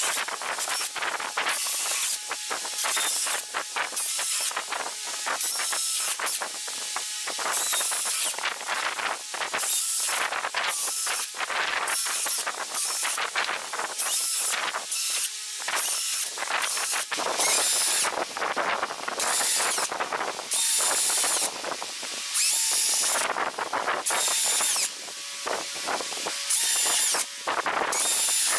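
Makita cordless drill boring holes through a pine board with a twist bit, running in short bursts about once a second, one hole after another.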